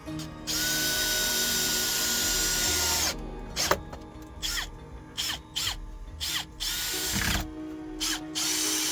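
Power drill running: one long run of about two and a half seconds, then a string of short trigger bursts, each winding down in pitch as it stops, then another steady run near the end.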